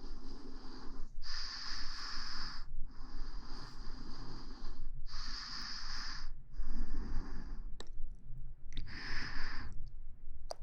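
Close-miked breathing, about six slow breaths in and out of one to two seconds each, with short pauses between them and a couple of small clicks in the second half.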